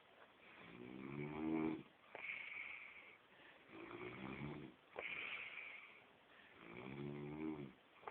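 A man snoring in his sleep: three snores, each followed by a breathy hiss, one about every two and a half to three seconds.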